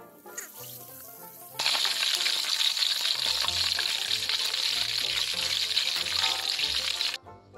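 Hot oil sizzling loudly around a whole mongoose frying in a wok, starting about a second and a half in and stopping suddenly near the end, with background music underneath.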